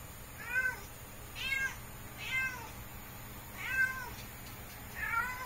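A tom cat meowing repeatedly while courting a female: five short meows that rise and fall in pitch, spaced about a second apart.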